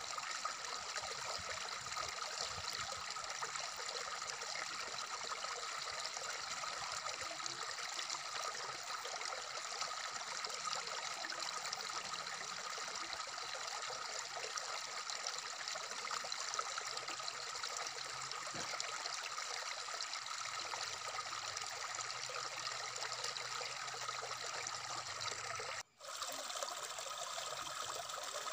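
Water running and splashing over stones in a shallow rocky stream, a steady even rush. Near the end the sound cuts out for a split second and comes straight back.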